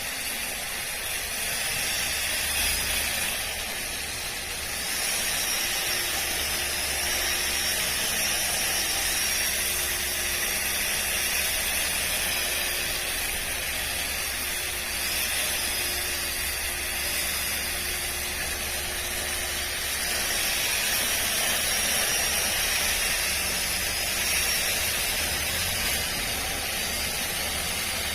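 Makita 18V cordless split ground trimmer running and cutting lawn grass: a steady hiss with a faint high whine that rises and falls.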